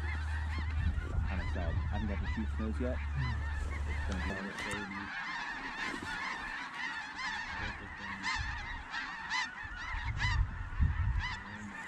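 A large flock of snow geese calling, loud: a dense chorus of many short, high-pitched honks and yelps overlapping without a break. A low rumble underneath cuts off about four seconds in.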